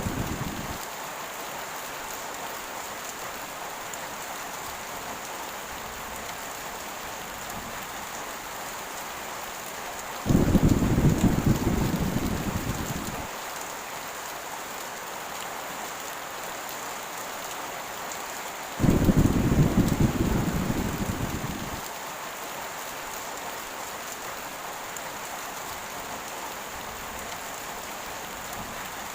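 Heavy rain falling steadily, with the tail of a thunder roll dying away at the start. Two more thunder rolls follow, about ten and nineteen seconds in, each starting suddenly as a deep rumble and fading over about three seconds.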